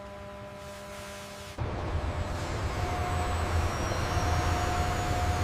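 Steady low machine hum, then about a second and a half in a loud low rumble starts suddenly and builds slowly, with a faint whine above it: the Z-11 helicopter's engine and rotor starting up for the initial power run.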